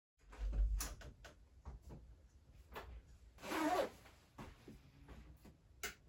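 A man moving about a workshop makes a series of knocks and clicks, a short scraping rustle a few seconds in, and a sharp click near the end.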